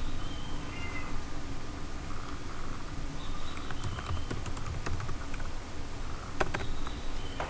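Short, high animal calls with gliding pitch, coming a few seconds apart, and several sharp clicks near the end.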